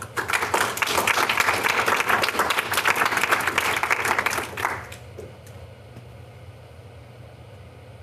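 Audience applauding, a dense patter of hand claps that stops about five seconds in, leaving a low steady hum.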